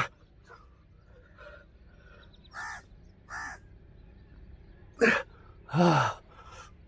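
A man's short, strained grunts and groans while he does push-ups, one per rep: two lighter ones, then two louder ones near the end, the last sliding down in pitch.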